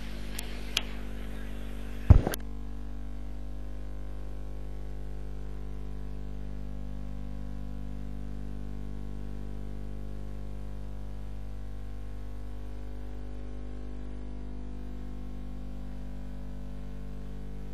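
Steady low electrical hum. A sharp click comes about two seconds in.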